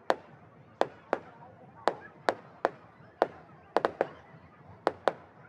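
Wood bonfire crackling: about a dozen sharp pops at irregular intervals over a faint steady hiss of the flames.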